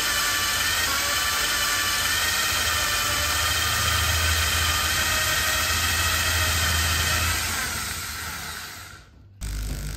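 Handheld electric drill running at steady speed, its motor whining with a stack of even tones, then winding down about eight seconds in.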